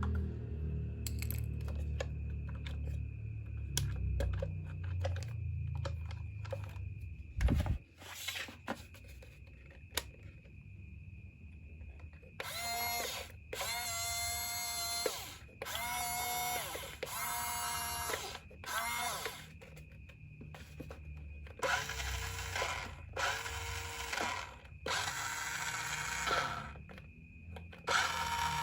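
Small electric gear motors of a toy RC construction vehicle whirring in a series of short bursts of about a second each, spinning up and winding down each time, after some handling noise at the start.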